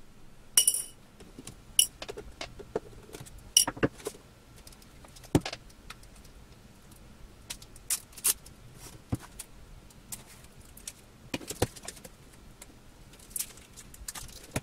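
Metal clicks and clinks of the thin sheet-metal frame of an LCD panel being pried loose and handled with a small tool. The clicks are scattered, and a few in the first four seconds ring briefly like struck metal.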